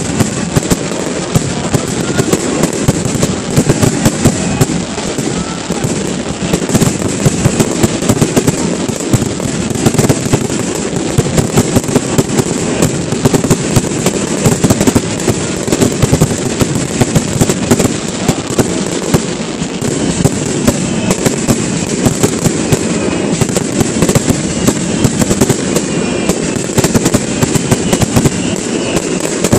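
Fireworks display: aerial shells and firework bursts going off in a dense, unbroken volley of sharp bangs, many a second.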